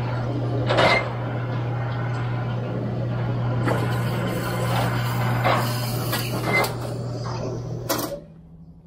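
KWM Gutterman seamless gutter machine running with a steady hum as its rollers form a length of 5-inch gutter, with occasional metal clanks and scrapes as the gutter slides out. The hum stops near the end.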